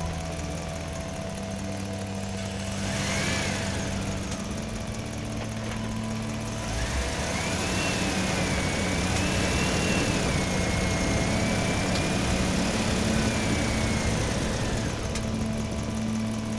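Excavator diesel engine running steadily, with a wavering high-pitched whine and hiss when the machine works: briefly about three seconds in, then for about eight seconds from the middle, when the engine gets louder.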